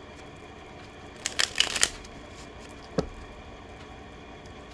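Tarot cards being shuffled: a quick flurry of card flicks about a second and a half in, then a single tap about three seconds in.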